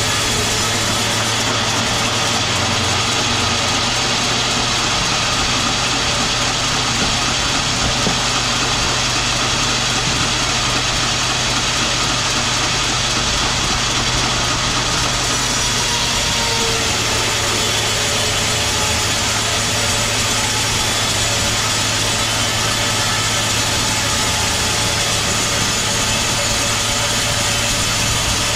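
Sawmill machinery running steadily: a constant mechanical hum and noise with no break or change in level.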